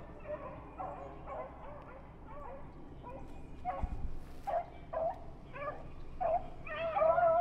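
Beagles baying in short, repeated calls while running a rabbit's trail, the calls growing louder and overlapping near the end. A brief low thump about four seconds in.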